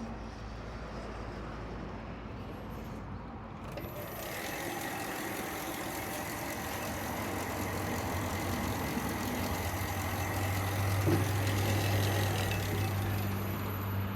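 Hitachi Koki CB22FA2 metal-cutting band saw running: a low steady hum at first, then about four seconds in a fuller running sound with a steady whine sets in and grows gradually louder.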